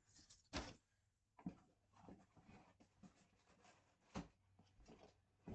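Faint rustling and scraping of packaging being handled during unboxing, with a few light knocks.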